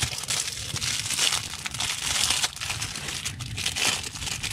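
Plastic wrapping of a Hot Pocket crinkling and rustling irregularly as it is handled and pulled open by hand.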